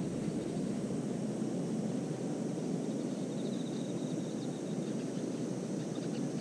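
Steady low outdoor rumble with no clear single source, and a short faint run of high, evenly spaced chirping ticks about three seconds in.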